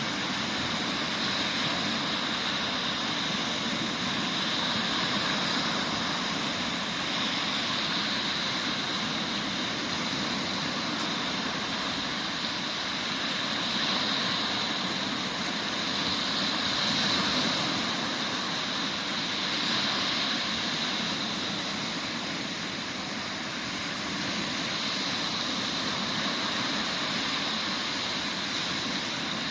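Sea waves washing onto the beach: a steady rush of surf that swells and eases every few seconds.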